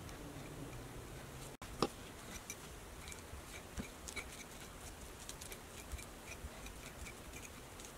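Metal fork mashing peeled bananas in a bowl. Light, irregular clicks of the fork against the bowl come several times a second, after one sharper knock about two seconds in.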